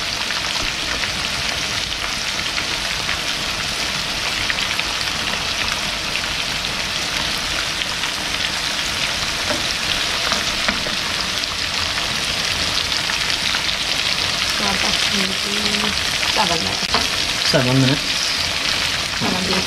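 Battered shrimp deep-frying in a pan of hot oil, with steady sizzling throughout.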